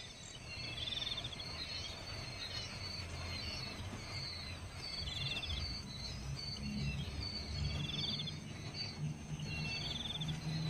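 Insects chirping: a short, pulsed, cricket-like trill repeats about every two seconds, with softer high chirps between, over a low rumble.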